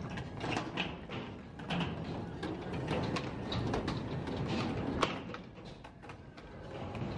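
Skatepark noise: skateboard wheels rolling on concrete, with scattered clacks and knocks of boards.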